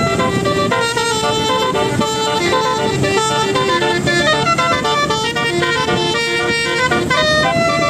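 Bus telolet horn of the Basuri type playing a quick multi-note tune, its notes changing several times a second, over a steady noise underneath.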